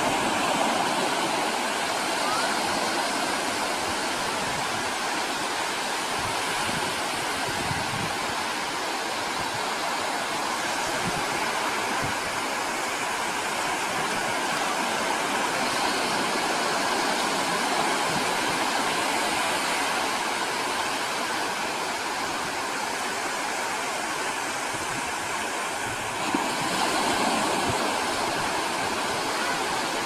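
Surf breaking and washing onto a sandy beach: a steady rush of waves that grows a little louder near the end.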